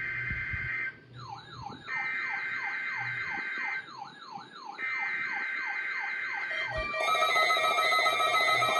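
NOAA Weather Radio SAME header for a Required Weekly Test: three harsh, buzzy digital data bursts with short gaps between them. From about a second in, a Midland WR-400 weather radio's alert alarm warbles over them in repeated falling sweeps, about three a second, as it decodes the test. Near the end a louder steady alarm tone takes over.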